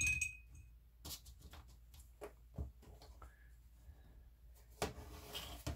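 A paintbrush clinks against a glass water jar with a short ringing tone as it is rinsed, followed by scattered light taps and knocks of a brush and a canvas being handled on a tabletop, and a brief scraping rustle near the end.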